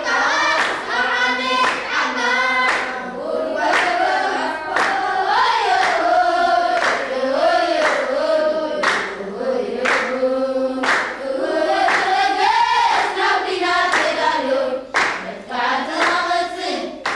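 A group of voices singing a melody together, with hand claps keeping time about twice a second.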